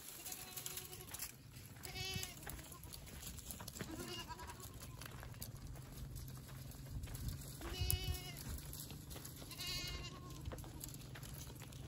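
A herd of goats bleating: about five separate calls a couple of seconds apart, several with a quavering tremble, with faint clicks underneath.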